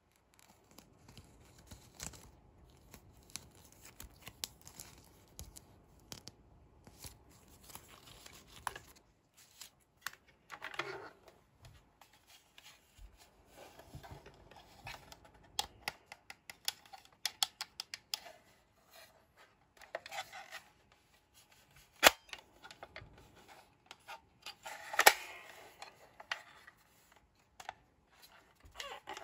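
Hands handling a Hello Kitty toy cash register's plastic parts and paper play money: paper and plastic rustling with scattered small clicks and taps, and one sharp, loud click about two-thirds of the way through.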